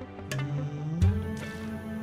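Background music: held tones, with a low note sliding upward into a low hit about a second in, and sparse sharp ticks.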